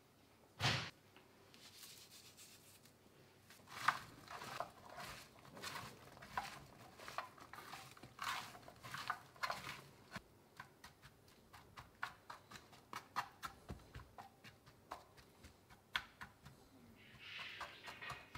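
A hand tossing diced zucchini and onion with olive oil in a baking tray: soft rustling, then many light clicks of the pieces knocking against the tray. A single sharp knock about a second in.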